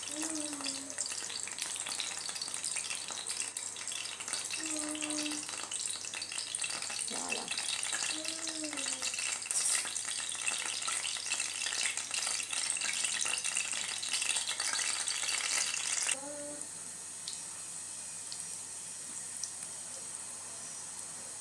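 Cauliflower croquettes (maakouda) sizzling and crackling as they fry in hot oil in a frying pan. The crackle is dense at first, then drops to a quieter, steadier sizzle about sixteen seconds in.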